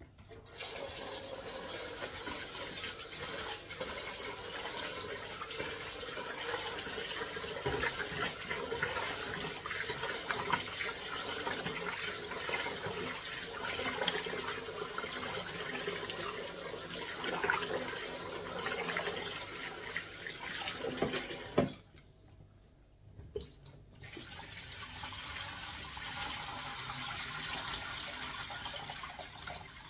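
Tap water running hard into a sink, with a few knocks along the way; the water stops about 22 seconds in and runs again, a little quieter, two seconds later.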